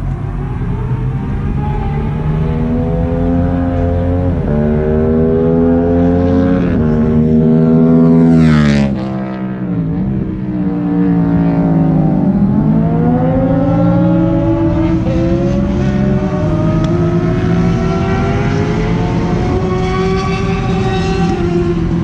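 Track-day car engines revving hard and climbing through the gears, the pitch rising and dropping back at each upshift. A car passes close about eight or nine seconds in, loudest there, its engine pitch falling steeply as it goes by. Then engines dip and climb through the gears again.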